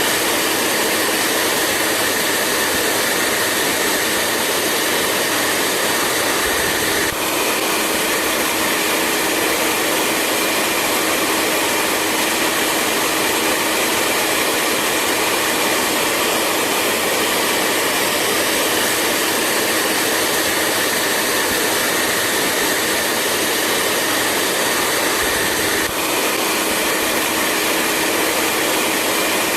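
Hair dryer running steadily: a continuous blowing hiss with a steady hum, dipping very briefly twice.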